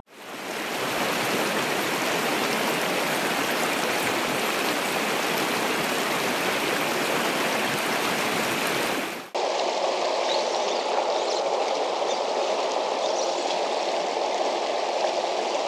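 Small mountain creek running over rocks, a steady rush of water. About nine seconds in it changes abruptly to a different stretch of water that sounds lower and fuller, with less hiss.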